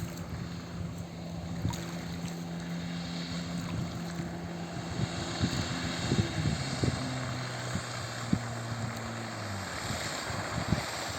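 Motorboat engine running at a steady pitch, dropping lower about seven seconds in and dying away near the end, over a steady hiss of wind and water.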